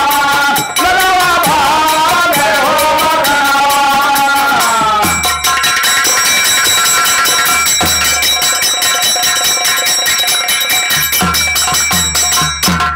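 Birha folk music: a man sings for about the first five seconds over nagara kettle drums beaten with sticks and small hand cymbals. The drums and cymbals then play on alone with a steady ringing, stopping at the end.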